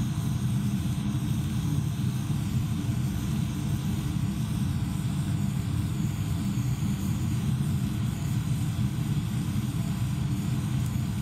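A jeweler's gas-and-oxygen torch flame burning with a steady low rush as it is played over small metal pieces to pre-melt the solder.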